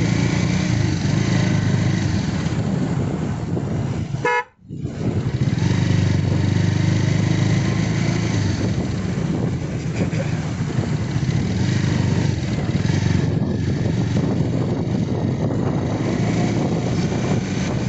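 Motorcycle engine running steadily under way with road and wind noise. A short horn toot comes about four seconds in, and the sound cuts out for about half a second right after it.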